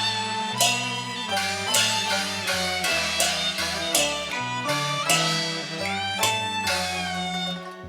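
Cantonese opera accompaniment ensemble playing an instrumental interlude, with a bowed string melody over quick plucked or struck string notes and a sustained bass line.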